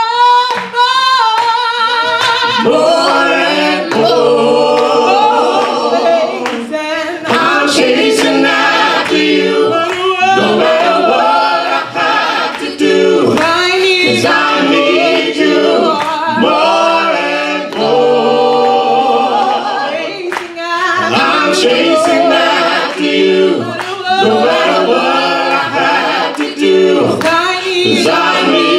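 A gospel vocal group of men's and women's voices singing a cappella in harmony, with no instruments.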